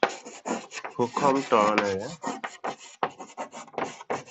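Chalk scraping on a blackboard in quick short strokes as words are written. A man's voice draws out a syllable about a second in.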